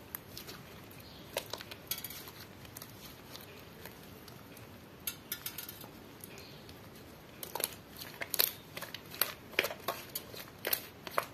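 Clear slime with glitter eyeshadow mixed in, stretched and squeezed by hand, giving sharp sticky clicks and pops. The pops come in small clusters at first and grow thick and fast over the last few seconds.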